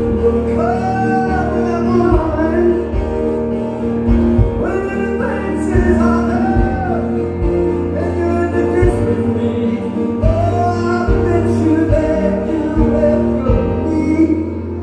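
Live music: two keyboards, one of them a Roland stage piano, accompanying a man singing.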